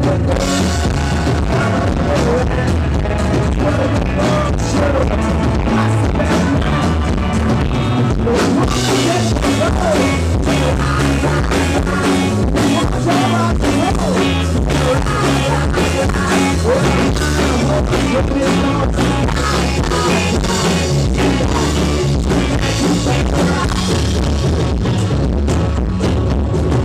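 Live rock band playing a song: strummed acoustic guitar, electric guitar, bass and drum kit, with a male lead singer.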